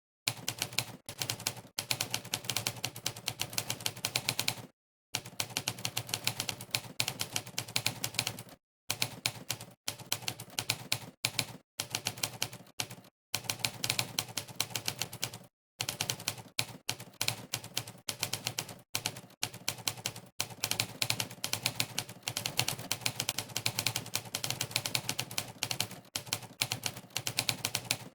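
Monkeytype's sampled typewriter keystroke sound, one clack per key press, in fast continuous runs of typing broken by several short silent pauses.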